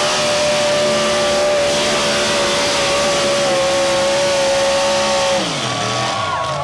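Super stock 4x4 pull truck's big-block V8 running flat out at a steady high pitch while dragging the weight sled. About five seconds in, the engine note falls sharply as it comes off the throttle.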